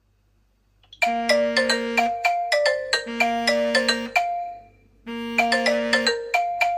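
Smartphone app incoming-call ringtone: a short melody of bell-like notes that starts about a second in, fades out, then starts over.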